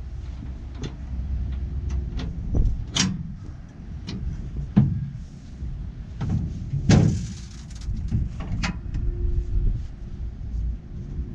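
Strong wind buffeting the microphone as a low rumble, with scattered knocks and clatter from hands-on work around a combine, the loudest about three, five and seven seconds in.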